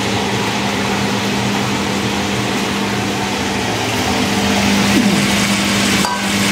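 Ultra tabletop wet grinder running steadily, its steel drum turning against the rollers as it grinds soaked rice and urad dal into smooth batter: a constant motor hum with a strong low tone.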